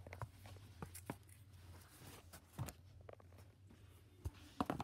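Faint, scattered light taps and knocks, about five over several seconds, over a low steady hum.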